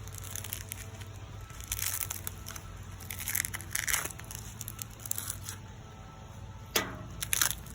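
A smashed smartphone being handled and pried open by hand, its cracked glass and plastic crunching and crackling in scattered bursts, with a few sharp snaps near the end.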